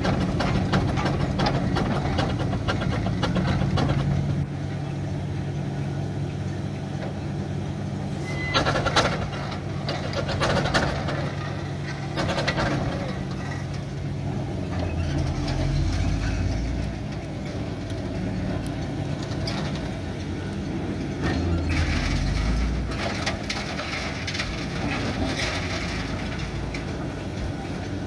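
Mann steam wagon running and driving slowly over gravel, its steam engine and gearing clanking, with a steady low hum in the first half and a few louder knocks around nine and eleven seconds in.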